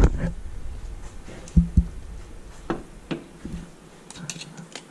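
Handling noise of a steel tape measure being brought up and set against an engine's crankshaft: scattered knocks and clicks, with two louder knocks about a second and a half in and a quick run of light ticks near the end.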